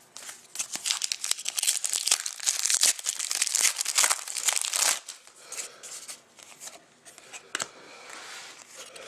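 Crinkling and tearing of a trading-card pack's foil wrapper being opened, loudest for the first five seconds, then fainter rustling with a sharp click.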